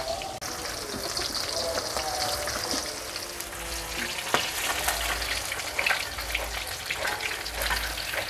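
Hot oil sizzling in a steel wok, with a metal ladle clinking and scraping against the pan as the contents are scooped and stirred.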